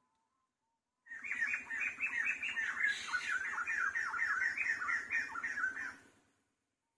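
Frog calling in a rapid run of short, falling croaks, about five a second. It starts about a second in and stops after some five seconds.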